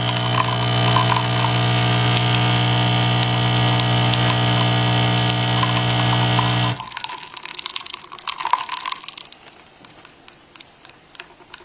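Nespresso Essenza Mini's pump buzzing steadily as it brews espresso, then cutting off suddenly about two-thirds of the way through when the shot ends. A few faint clicks and drips follow.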